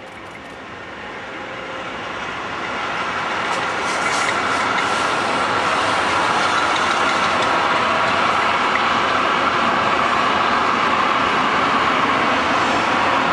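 Freight train of open goods wagons rolling along the track: a steady rumble of wheels on rails that grows louder over the first few seconds and then holds, with a few clicks about four seconds in.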